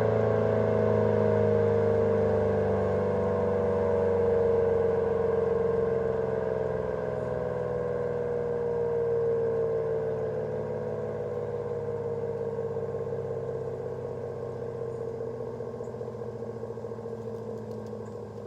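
ACA P-10 electromechanical siren winding down at the end of its test: its tone slides slowly and steadily lower and fades.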